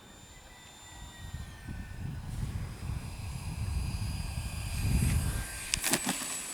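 Whine of a 6S 70mm electric ducted fan on an RC jet. Its thin high tones slide down about a second and a half in as the throttle is eased back for landing, while a low rumble grows louder over the next few seconds. A few sharp clicks come near the end.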